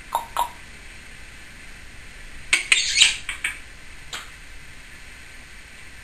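Timneh African grey parrot making short sharp noises: two quick chirps at the start, then a burst of loud clicks about halfway through and one more click shortly after.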